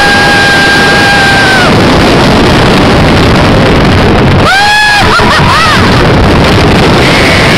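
Riding the California Screamin' steel roller coaster: loud, steady rush of wind on the microphone over the train's rumble on the track. Riders scream over it: one long held scream at the start, and another rising scream followed by short whoops about halfway through.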